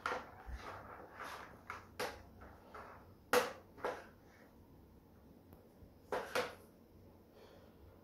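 Hard plastic toys being handled: a toy dump truck's tipper bed is moved and set down, giving a few separate knocks and clatters, the loudest about three and a half seconds in and again around six seconds in.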